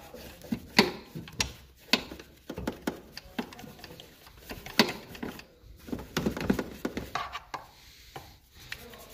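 Stiff-bristled hand brush scrubbing degreaser foam over engine-bay panels: irregular scratchy strokes with sharp taps and clicks.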